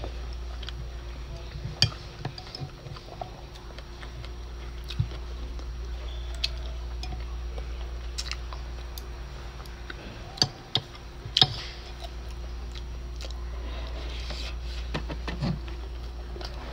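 Someone eating: chewing, with utensils clicking now and then against a glass food container. A few sharp clicks stand out, the loudest about ten and eleven seconds in, over a steady low hum.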